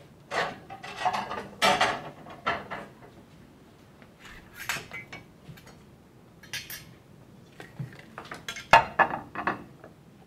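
Dishes and cutlery clattering as they are handled, in several short bursts of knocks and clinks, the loudest near the end.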